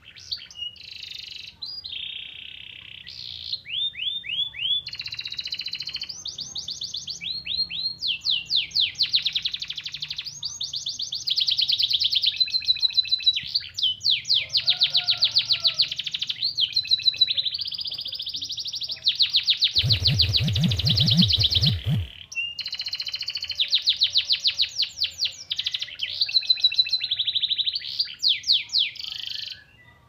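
Domestic canary singing a long, continuous song of fast trills and rolls, with phrases copied from the white-eye (pleci). A brief noisy rumble cuts across the song about two-thirds through.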